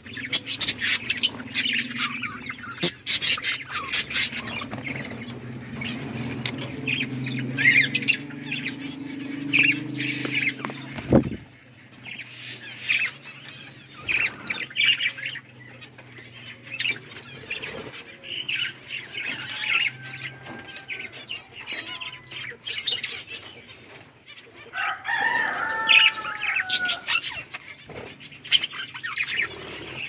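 A flock of budgerigars chattering: a dense, continuous run of quick high chirps and warbles, with a few clearer falling whistled calls about 25 seconds in. A low steady hum underlies the first ten seconds or so.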